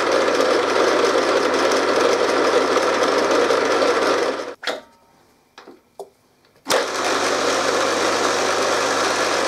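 RF45-style milling machine's six-speed geared head running with a loud, steady gear noise, the annoying rattle the owner says has been getting worse. It stops about halfway through, a few clicks follow, and it starts up again and runs steadily.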